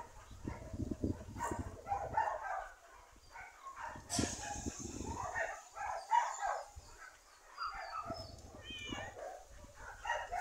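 A string of short animal calls, one after another, with a sharp high call about four seconds in and a few higher chirps near the end.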